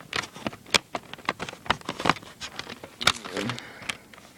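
CD cases and their booklets being handled, a rapid irregular run of sharp clicks, taps and rustles.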